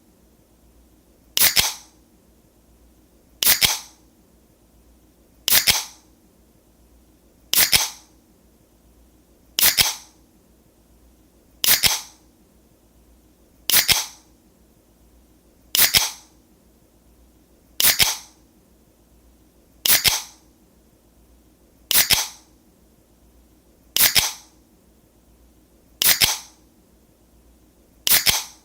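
Aluminium drink can being opened, fourteen times at about two-second intervals: each a sharp pull-tab crack followed by a brief hiss of escaping gas.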